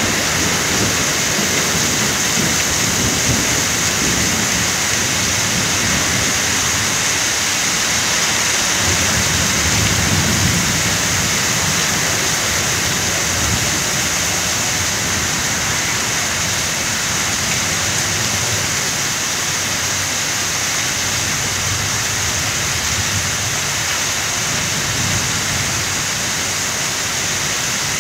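Torrential thunderstorm rain pouring down in a steady, loud hiss: a very heavy downpour.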